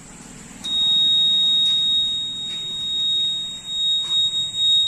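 Buzzer of a homemade battery-powered bike alarm sounding one continuous high-pitched tone. It switches on abruptly just under a second in, showing the alarm is triggered.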